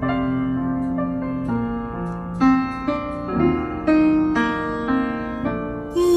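Piano playing a slow sequence of single notes and chords, the intro to a song, played back over a car's upgraded audio system with Focal Utopia M midrange speakers.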